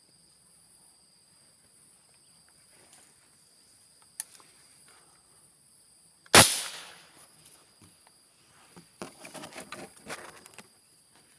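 A single sharp airgun shot, the crack of a fishing airgun firing its spear, about six seconds in, dying away over about a second. A steady high-pitched insect buzz sits behind it, with a small click before the shot and a spell of rustling and clicking near the end.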